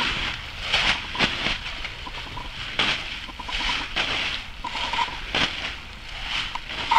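Blue plastic tarp crinkling and flapping as it is shaken and waved in the air, with several sharp rustles.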